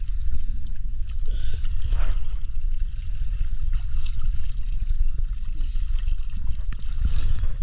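Water gurgling and sloshing around the camera, over a steady deep rumble.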